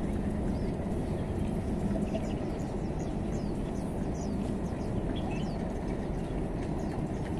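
Steady low outdoor rumble, with small birds chirping in short, high notes over it, several times.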